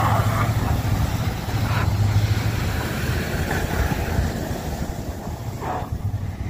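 Large classic sedan's engine under throttle as it pulls away with its rear wheels spinning in the snow. The engine note is strongest at first and fades as the car drives off.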